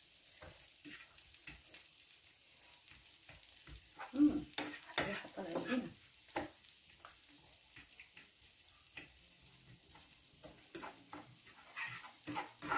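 Lemon-garlic butter sauce sizzling steadily in a frying pan while a utensil stirs it, scraping and knocking against the pan, mostly around four to six seconds in and again near the end. The garlic is being cooked down in the sauce.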